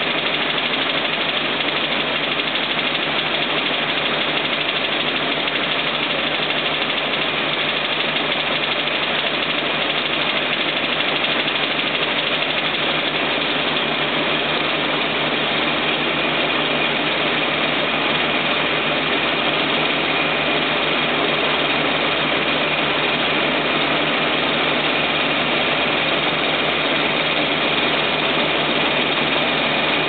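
A combine harvester's engine and unloading auger running steadily while the auger discharges rice grain into a trailer; an even, unbroken machine noise with no change in level.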